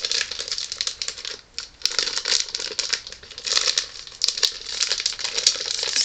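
Plastic candy bag crinkling on and off as it is handled and worked at to get it open.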